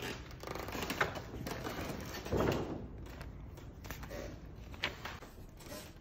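Cast-iron hand printing press being opened after an impression: a few scattered knocks and clunks of its wooden and iron frame and bed being handled, with the loudest thump about two and a half seconds in.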